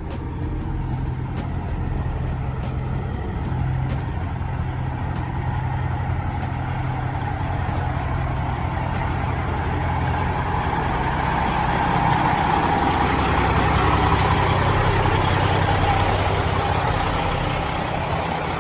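Semi-truck diesel engine idling with a steady low rumble, swelling somewhat in the second half.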